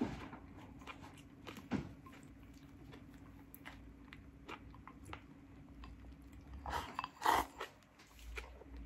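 Quiet chewing of cauliflower rice with natto, with small clicks of wooden chopsticks against a porcelain bowl. About seven seconds in, a louder brief burst as the bowl is raised to the lips and food is shoveled in.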